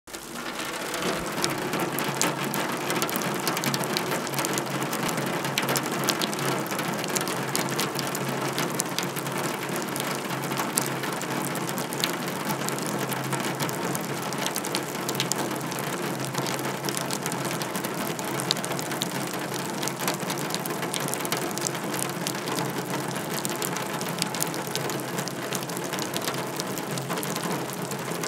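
Rain falling on a wheelbarrow: a dense, steady patter of countless drops ticking on it.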